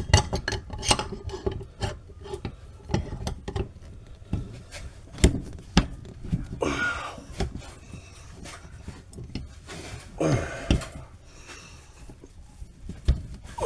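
Scattered metal clinks and knocks with some scraping and rubbing, from hand tools working at a steel bushing rusted solid inside a quad's swing arm.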